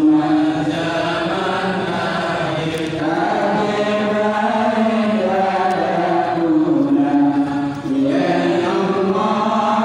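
A man chanting an Islamic religious recitation into a microphone over a loudspeaker: long held notes with sliding, ornamented turns between them.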